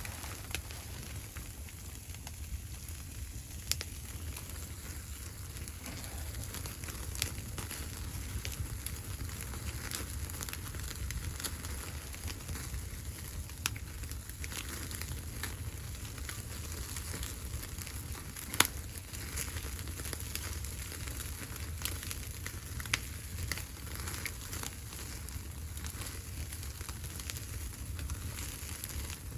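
Wood fire crackling in a wood stove: irregular small pops and snaps, one sharper pop about 18 seconds in, over a steady low rumble.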